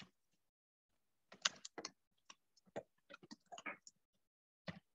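Faint, choppy scraps of sound: short clicks and clipped fragments that cut in and out with dead silence between them, the audio of a video call breaking up over an unstable internet connection.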